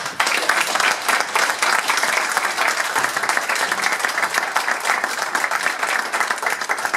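A group of people seated around a meeting table applauding: dense, steady hand-clapping right after a speech ends.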